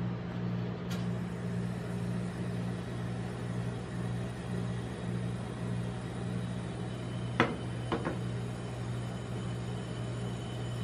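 Steady low hum of a rolled-ice-cream machine's refrigeration unit running under the cold steel plate. Two sharp taps about half a second apart come near the end.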